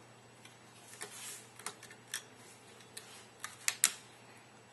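A few light, irregular clicks and ticks of a screwdriver and small screws against an airsoft AK47's receiver as the screws are taken out.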